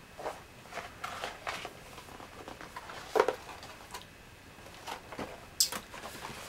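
Cardboard sample box being handled and turned over: scattered rustles and light taps, with a couple of sharper knocks, one about three seconds in and one near the end.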